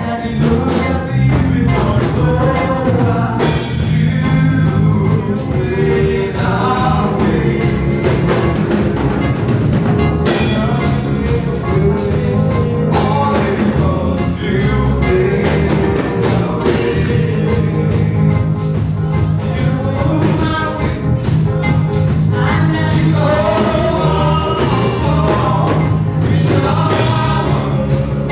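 Gospel music with singing over a steady band beat of drums and instruments.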